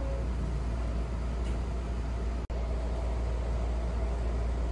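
Seibu Tamako Line commuter train running along the track: a steady low rumble with running noise and a faint steady whine. It cuts out for an instant about halfway through.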